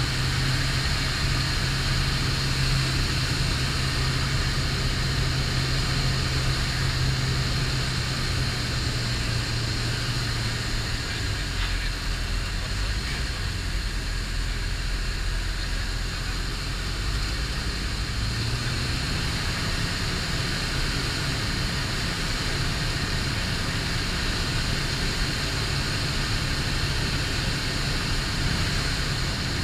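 STOL CH 750 light aircraft's engine and propeller droning steadily in flight over a steady rush of noise. The engine note drops lower about ten seconds in and rises back up about eighteen seconds in.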